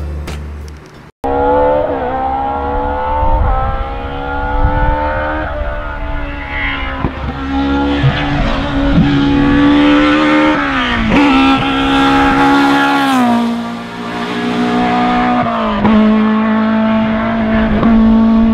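Rally car engine running hard at high revs after a short burst of music that cuts off about a second in. The engine pitch climbs and drops in steps as the driver changes gear and lifts off the throttle.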